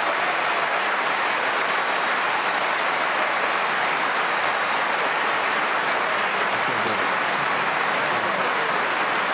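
A large audience applauding steadily, the sound of many hands clapping at once.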